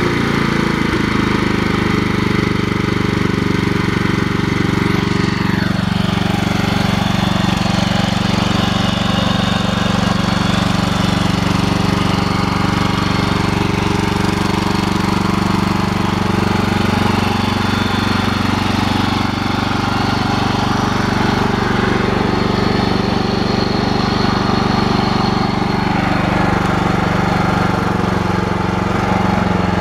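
Engine of a rebuilt 1998 Toro 30197 walk-behind mower running on a test run, coming up to speed in the first second and then running steadily.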